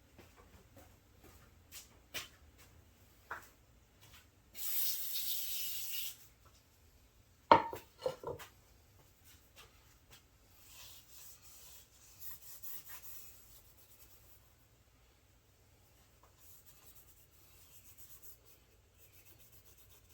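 Aerosol carburetor cleaner sprayed once in a hiss of about a second and a half, then a sharp knock and a few clicks, followed by on-and-off rubbing as the Peerless 206 transmission case is wiped clean.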